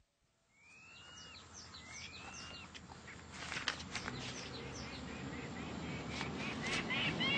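Jungle bird calls: two long whistles that sweep up and tail off, runs of quick descending chirps, and near the end a fast repeating series of short chirps, with a few sharp clicks about halfway through.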